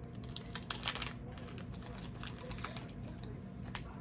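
Cardboard trading cards being flipped through and handled: a quick run of clicks and snaps about a second in, then scattered single clicks.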